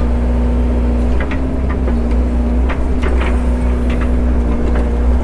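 Excavator engine running steadily under load, with scattered light knocks and rattles from the bucket and linkage. The small rattle is still there after gussets and rubber padding were added to quieten the bucket.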